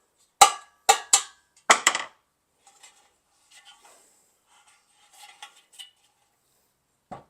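Small hammer tapping the metal tabs of a chrome Mopar Sport hubcap over its center piece to seat it, four sharp ringing metallic taps in the first two seconds. Then faint clicks of the hubcap being handled, and one more knock near the end.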